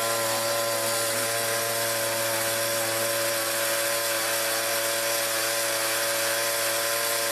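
Petrol generator running steadily at constant speed, very noisy: an even engine hum with a hiss over it.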